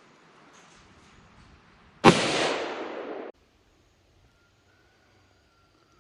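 A single shot from a Magnum Research BFR revolver chambered in .30-30 Winchester, about two seconds in, loud with a long echoing tail that cuts off suddenly about a second later.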